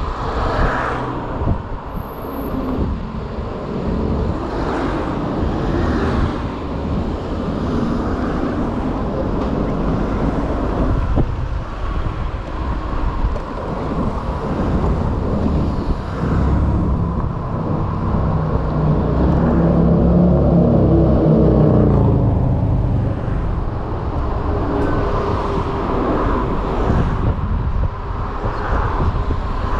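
City street traffic and wind noise heard from a moving electric moped, steady throughout. A louder passing vehicle swells up about two-thirds of the way in, then fades.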